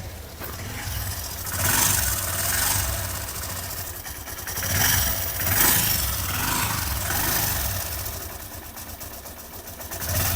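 Hero Passion X Pro's single-cylinder four-stroke engine running, swelling louder a few times, with a harsh rattling 'ghar ghar' from inside. The mechanic traces the rattle to a slack timing chain and worn chain guide rollers, with the chain hitting metal.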